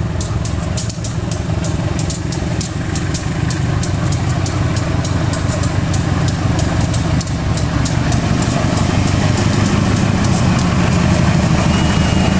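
Diesel locomotive hauling a passenger train slowly out of the station, its engine running with a steady low hum that grows louder as it draws near. Frequent sharp clicks ring out over the hum.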